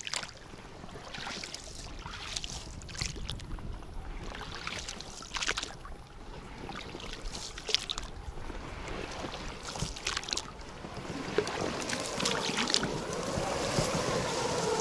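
Small boat being paddled across water: irregular splashes and knocks of the paddle strokes. Near the end, a wavering tone rises and falls and swells over them.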